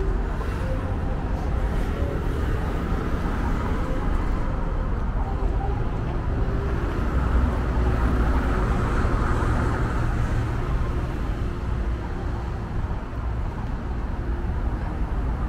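Street ambience beside a road: steady traffic noise with a low rumble, swelling a little around eight seconds in as vehicles pass.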